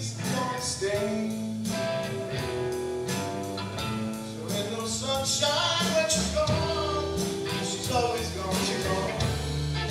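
Live band playing: electric guitars, bass guitar and drum kit together.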